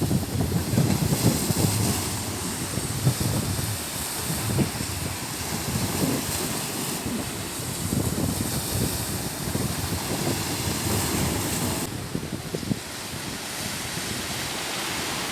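Sea surf washing on the shore, a steady rushing hiss, with wind buffeting the microphone in uneven low gusts.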